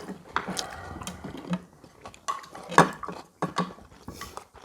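Cutlery and dishes clinking at a meal table: spoons and chopsticks tapping against bowls, with a few sharp clinks at irregular moments, the loudest nearly three seconds in.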